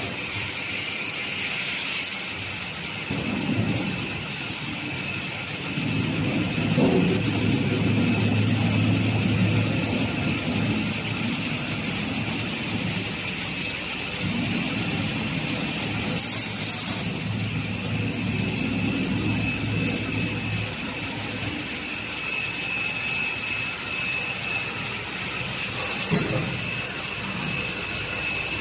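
Double beam panel saw running, its spinning blade giving a steady high whine, with two longer stretches of louder low rumbling as it works through the panels. A short hiss comes partway through.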